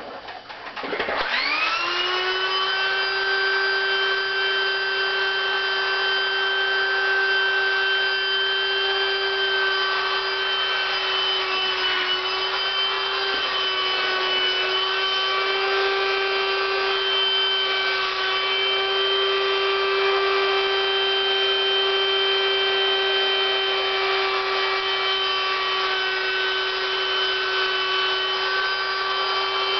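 Electric air pump switching on about a second in, its whine rising quickly to a steady pitch, then running steadily as it inflates an inflatable latex suit.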